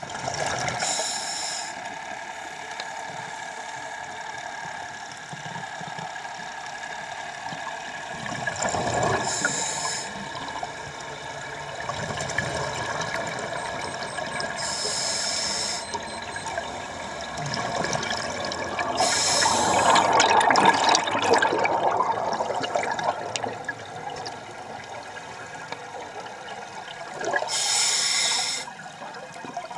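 Underwater sound of scuba divers' exhaled air bubbles bursting out in short hissing gushes every few seconds, over a steady bubbling and rushing of air rising from the lift bags used to right the inverted wreck; the rushing is loudest about two-thirds of the way through.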